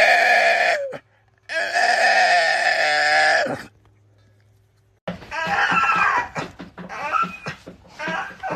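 A dog howling in two long drawn-out howls, the second falling in pitch at its end. After a short silence comes a run of shorter, choppy vocal sounds.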